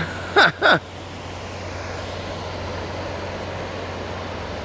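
Steady rushing of a ship's wake surging up onto a sandy shore, with two brief falling cries near the start.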